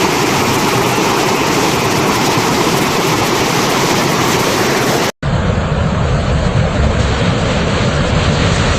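Waterfall water rushing as a steady noise. About five seconds in it cuts out for an instant and comes back deeper, with more low rumble.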